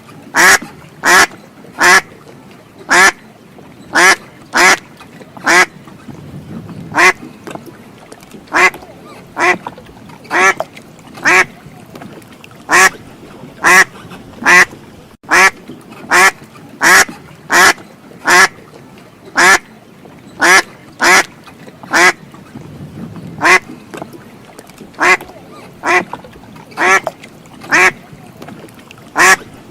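A duck quacking over and over: short, loud quacks, about one to two a second, some coming in quick pairs.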